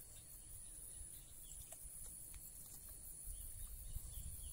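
Quiet rural ambience: insects keeping up a steady high-pitched drone over a low rumble.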